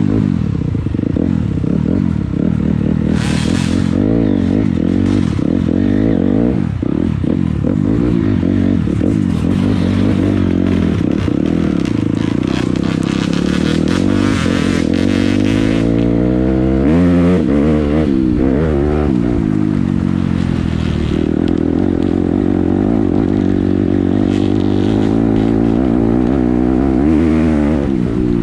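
A 250 cc dirt bike engine running under load on a trail, its pitch rising and falling with the throttle and with big swings in revs partway through, along with clattering and scraping.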